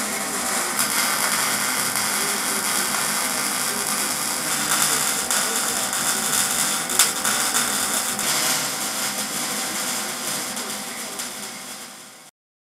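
Wire-feed (MIG) welder welding 14-gauge steel square tubing: a steady crackling hiss that fades out near the end and then stops.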